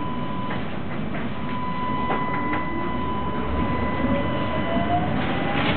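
Tram cabin interior while the tram is running: steady rumble of wheels and running gear, a faint clicking and a steady high tone. From about halfway through, a motor whine rises steadily in pitch as the tram picks up speed.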